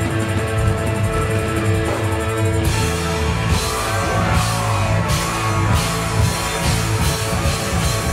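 Rock music with drum kit and guitar: held chords and a heavy bass line, with the drums and cymbals coming in about a third of the way through.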